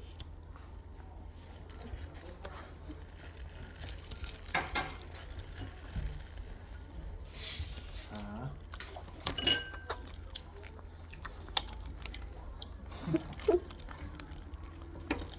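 Eating sounds at a meal of chicken and pizza: chewing and biting, with scattered clicks and clinks of dishes and cutlery, and a brief noisy burst about seven seconds in.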